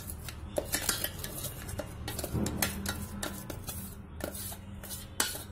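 A spatula stirring and scraping coarse ground makhana-and-cashew powder in a ceramic bowl, with irregular clinks and scrapes against the bowl and a sharper knock near the end.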